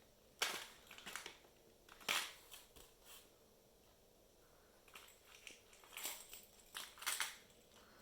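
Baby's toy shakers rattling in short, irregular bursts as she handles and shakes them.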